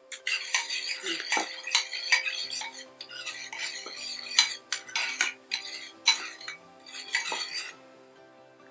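Metal spoon stirring a liquid dressing in a small ceramic bowl, clinking and scraping quickly and unevenly against the bowl's sides and bottom, stopping about a second before the end.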